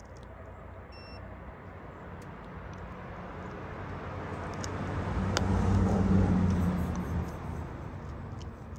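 A motor vehicle passing on a nearby road: engine and tyre noise swell steadily, peak about six seconds in, then fade away.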